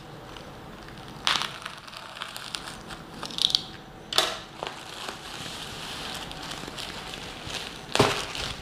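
White plastic courier mailer being torn open and crumpled by hand: steady crinkling broken by several sharper rips, about a second in, around four seconds in and near the end.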